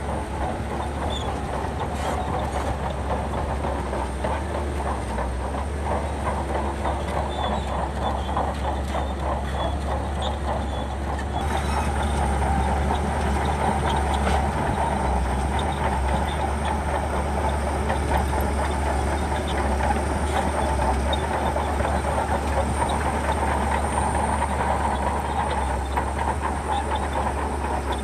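Shantui crawler bulldozer at work pushing sand: its diesel engine runs steadily under load with the noise of its tracks, growing a little louder partway through.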